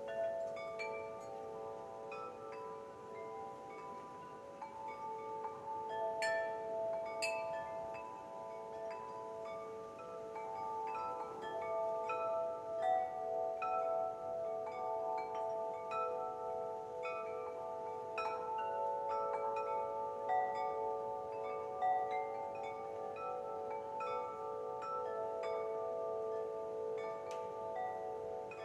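Wind chimes ringing gently and continuously: many overlapping tones struck at irregular moments, each ringing on, with a few brighter strikes about six and seven seconds in.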